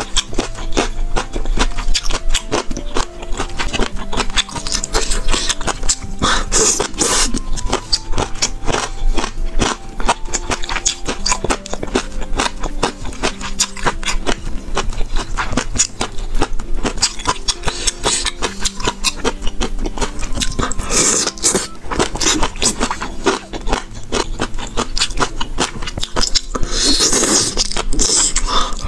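Close-miked chewing of boneless chicken feet in chili sauce, a dense run of quick mouth clicks that grows louder in short patches, over background music with held notes.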